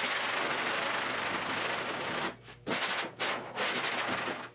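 Hand sanding the steel body panel of a Triumph GT6 with a sanding block, taking the paint down to bare metal. A steady rasp for about two seconds, then three separate back-and-forth strokes with short pauses between.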